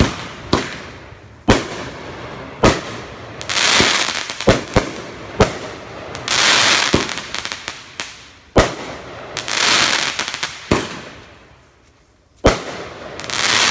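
Aerial fireworks bursting overhead: a string of sharp bangs, some in quick pairs, and several bursts followed by about a second of hissing crackle. A short lull comes near the end before one more bang.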